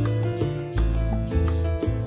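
Background music with a bass line and a steady beat.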